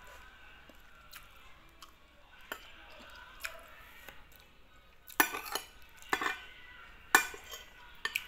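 Spoon and fork clinking and scraping on a plate of rice and chicken, faint at first, then sharper clinks about five, six and seven seconds in.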